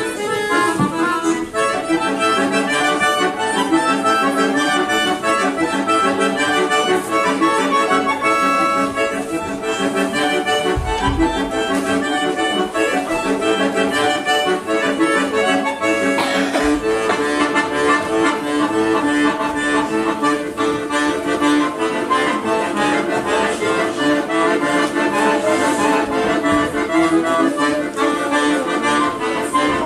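Scandalli chromatic button accordion played solo: quick runs of notes in the treble over sustained chords, continuous and loud. A couple of brief low thuds come in under the music, about eleven and sixteen seconds in.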